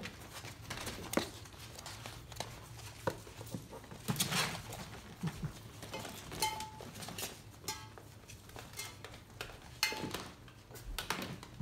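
Five-week-old Labradoodle puppies moving about on a hard floor and a plastic play slide: their paws and claws make an irregular run of light taps, clicks and scrabbles. A few short higher-pitched sounds come around the middle and near the end.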